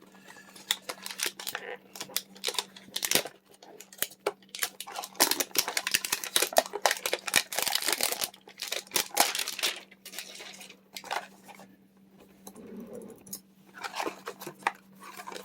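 Crinkling, crackling rustle of a foil Pokémon booster pack wrapper being handled and torn open, in irregular bursts that ease off about two thirds of the way through. A faint steady electrical hum lies underneath.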